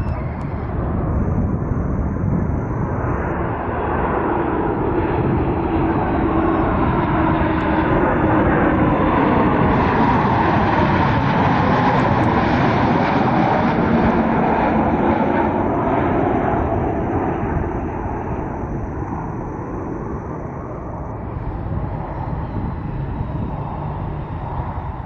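Boeing 737 MAX 8's CFM LEAP-1B turbofans on landing approach, passing low overhead. The jet noise grows to its loudest about halfway through, then fades as the aircraft flies away, its pitch dropping as it passes.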